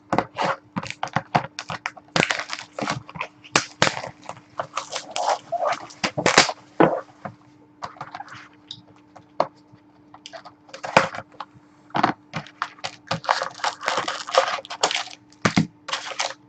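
Plastic wrapping and cardboard crinkling and rustling as a box of trading-card packs is torn open and handled: a quick, irregular run of crackles and rustles.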